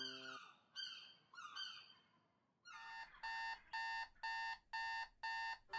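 A few repeated short, falling bird cries that fade out, then about three seconds in an electronic alarm clock starts beeping, about two evenly spaced beeps a second.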